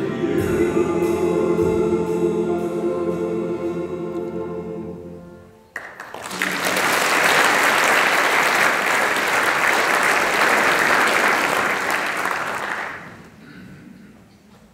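Male choir ending a song on a held chord that fades out about five seconds in. Audience applause follows for about seven seconds, then dies away.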